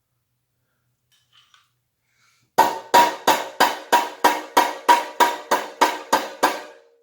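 A run of about thirteen evenly spaced hammer blows on the metal front end of a bicycle frame, roughly three a second, each blow ringing briefly. The blows start a couple of seconds in and knock the newly fitted triple tree and handlebar into centre.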